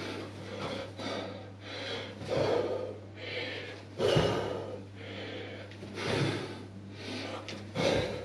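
A man breathing hard through a set of jumping lunges, puffing out breaths about once a second, with a few heavier thuds as his feet land on the floor.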